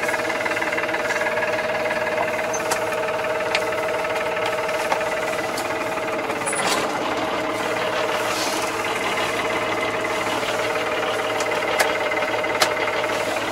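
Massey Ferguson 2220 tractor running steadily under load with its mower working, heard from inside the closed cab as an even engine drone. A few sharp ticks stand out above it.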